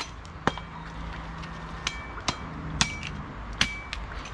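A metal blade chopping through barracuda on a cutting block: about seven sharp, irregular chops, several followed by a brief metallic ring.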